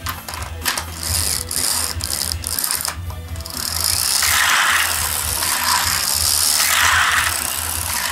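Darda toy truck's pull-back spring motor: a run of sharp ratcheting clicks as it is wound, then a steady high whir as the released truck races around the plastic track, swelling twice as it takes the banked curves.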